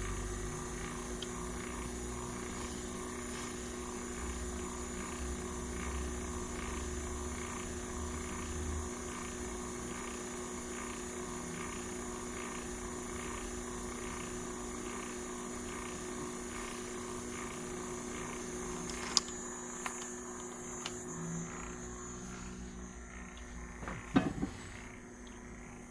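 Chinese five-axis CNC machine running: a steady electric whine with a faint regular ticking. There is a sharp click about three-quarters of the way through and a short cluster of knocks near the end, after which it gets quieter.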